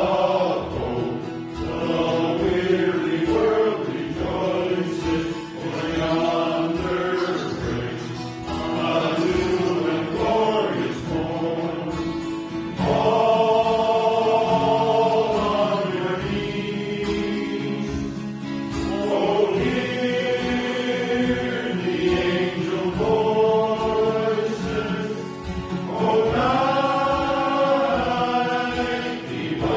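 Church choir singing a hymn in long held notes, with strummed guitar accompaniment keeping a steady beat underneath.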